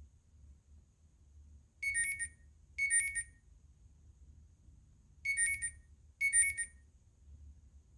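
An iPhone 11 Pro ringtone of high electronic alarm-like beeping: two short trilled bursts about a second apart, a pause of about two seconds, then two more.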